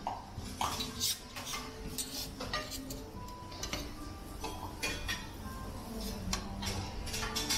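Scattered clinks and clatter of plates, cutlery and metal utensils, a dozen or so sharp clinks at irregular intervals.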